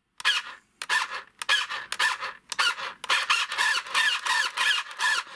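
Small electric steering motor and plastic gearing of a toy-grade RC stunt car whining in about a dozen short bursts, roughly two a second, as the steering is worked back and forth; the steering bends the car's whole articulated body.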